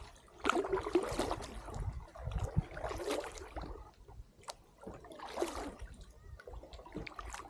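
Kayak paddle strokes: the blade dips and pulls through calm water with a splash about every two and a half seconds, and drips fall from it between strokes.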